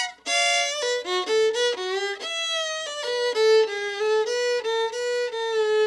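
Solo fiddle playing a quick bluegrass phrase, the notes changing several times a second, with slides between some of them and a few short double stops.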